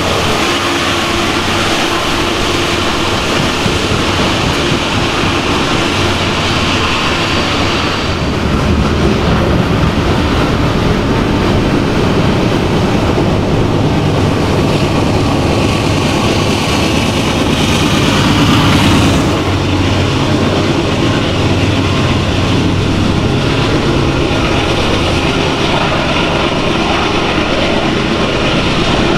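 Freight train of loaded coal hopper cars rolling past, a steady rumble and rattle of steel wheels on rail.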